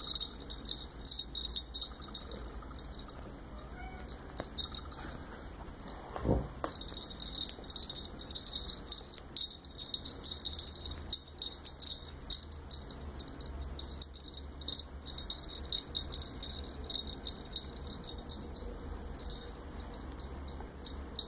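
Crickets chirping in quick, uneven pulses that run without a break.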